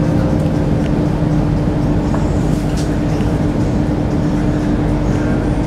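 SMRT C830C metro train standing at a platform with its doors open, giving off a steady hum with a low constant tone.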